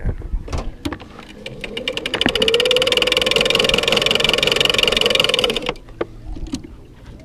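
Electric downrigger motor winding cable: a steady whir with very fast clicking that runs up about two seconds in, holds for roughly four seconds, then stops abruptly.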